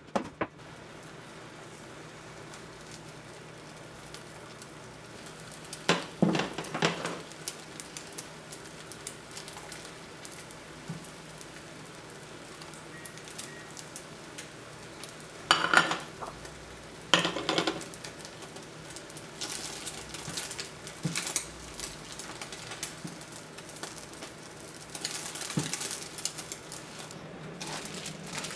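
Egg cooking in a square omelette pan with a faint steady sizzle, broken by a few short bursts of utensils clattering against the metal pan, the loudest about six seconds in and twice more in the middle. Near the end a plastic bread bag rustles.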